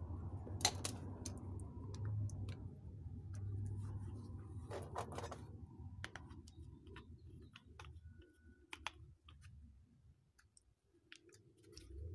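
Scattered light clicks and taps of a 3D-printed resin bullet mold and its lids and plier-style handles being handled in thick gloves, with a louder click just under a second in and a cluster around five seconds in. A low rumble underneath fades out about halfway through.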